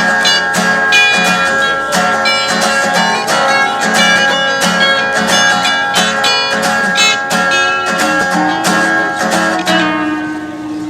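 Acoustic guitar playing an instrumental break in a song, with steady rhythmic strumming and picked notes.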